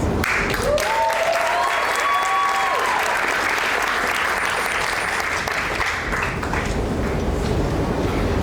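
Concert audience applauding, with a few voices calling out in the first seconds; the applause fades away after about six seconds.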